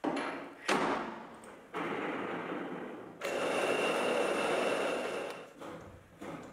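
Small metal lathe running while a die in a tailstock die holder cuts a thread onto a metal rod. There is a sharp metallic knock near the start.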